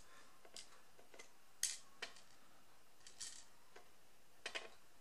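Scattered small metal clicks and light taps, about seven over a few seconds: tiny lock pins and the picking tools being handled while the bottom pins are taken out of a padlock core.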